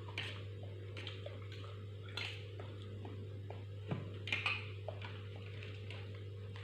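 Close-up eating sounds: soft chewing with a few short wet mouth smacks and clicks, the strongest near the middle, over a steady low hum.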